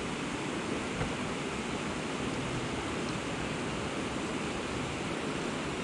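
Steady rush of flowing water: an even hiss with no distinct events.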